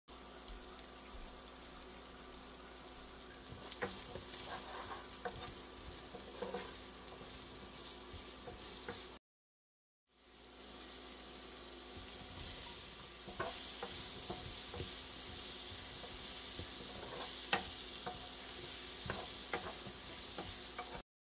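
Sliced carrots and onion, later with zucchini, sizzling in butter and oil in a nonstick frying pan, with a spatula stirring and knocking against the pan in scattered sharp clicks. The sound cuts out completely for about a second partway through.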